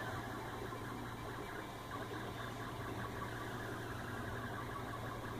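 Steady low machine hum with even fan-like noise, holding level throughout.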